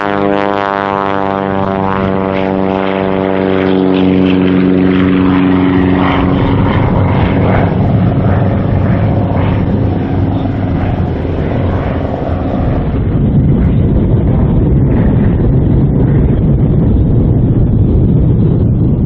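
Red Zlin Z-142C light aerobatic airplane's engine and propeller at high power as it takes off and climbs past. The engine drone falls in pitch over the first several seconds, then turns rougher and noisier with a low rumble as the plane climbs away overhead.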